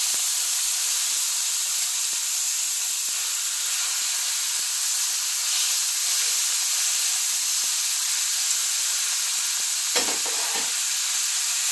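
Seared bison short ribs and chopped vegetables sizzling in a hot pan: a steady frying hiss as the meat is laid back in among the vegetables. A couple of light knocks near the end.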